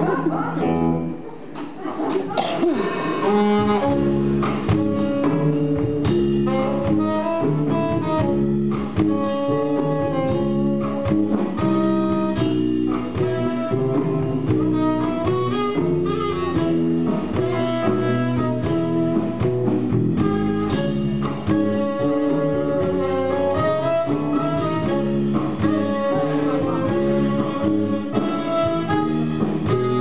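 Live band playing an instrumental passage: electric guitar and drum kit, with a clarinet carrying the melody. The full band comes in about two seconds in.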